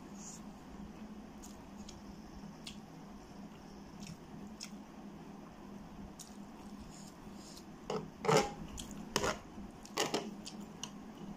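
Close-miked eating sounds of instant noodles: faint wet mouth clicks of chewing over a steady low hum, then a few louder clatters and scrapes of a metal spoon scooping noodles off the tray about eight to ten seconds in.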